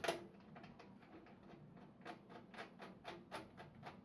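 A screw being driven into a motherboard standoff with a screwdriver: a click, then a run of small, irregular clicks, more distinct in the second half.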